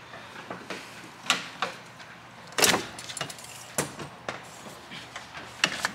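Irregular metallic clinks and knocks of hand tools and metal parts while the intercooler pipe clamp is worked loose, the loudest a sharp clank a bit under three seconds in.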